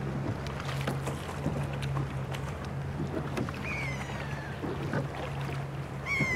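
Gondola gliding along the canal: water sloshing against the hull with small knocks from the oar, over a low steady engine hum that drops out now and then. Two short, high, falling calls, about three and a half and six seconds in.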